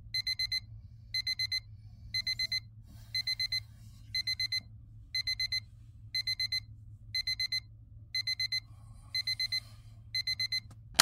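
Wake-up alarm beeping in groups of four quick, high beeps, about one group a second, until it stops near the end as the sleeper reaches out to switch it off.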